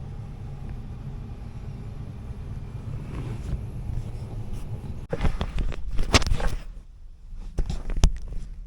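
Steady low rumble of an air handler's blower running, then, about five seconds in, a run of sharp knocks and rattles from the unit being handled.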